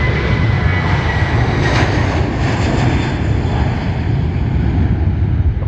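Jet airliner engines running loud and steady, swelling slightly a couple of seconds in.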